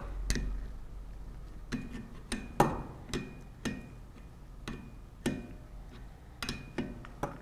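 Open-end wrench clicking against the tube fitting nut on a glycol pump's tubing as it is lifted and reset on the nut to tighten the fitting: about a dozen sharp metal clicks, irregularly spaced about half a second apart, some with a brief metallic ring.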